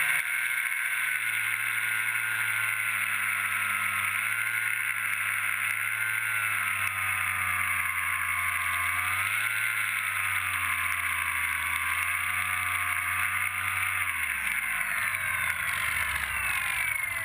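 Electric motor and propeller of a foam-board flying wing running in flight over a steady rush of wind, its pitch wavering up and down with the throttle. Near the end the pitch falls steadily as the motor is throttled back.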